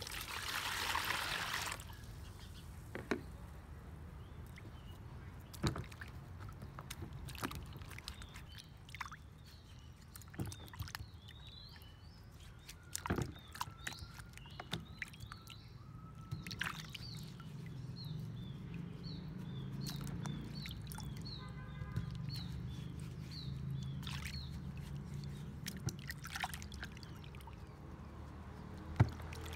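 Water poured from a plastic bowl into a plastic basin for about two seconds, then splashing and sloshing as sweet potatoes are rubbed and turned by hand in the water, with occasional knocks of the tubers against the basin.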